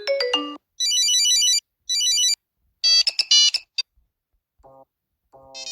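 Nokia mobile phone ringtones played one after another in short snippets. A quick falling run of beeping notes ends about half a second in, followed by two short bursts of a fast, high warbling ring. A fuller multi-note tone comes about three seconds in, and there are brief faint snippets near the end.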